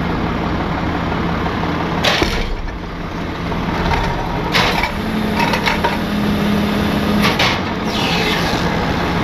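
Tow truck's engine running steadily while it manoeuvres slowly, with three sharp knocks about two, four and a half and seven seconds in.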